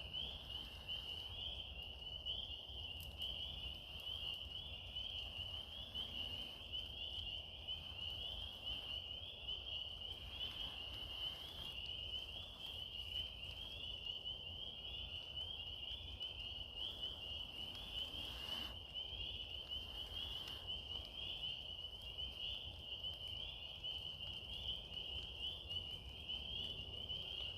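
A dense chorus of calling frogs or insects: one unbroken, high-pitched pulsing trill, over a low rumble.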